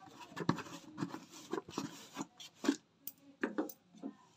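Kitchen handling noise: irregular short rubs and scrapes with a few light knocks from utensils and cookware.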